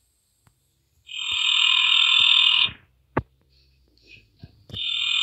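A loud raspy buzz that starts and stops abruptly, lasting nearly two seconds, with a sharp click after it and then the buzz again near the end.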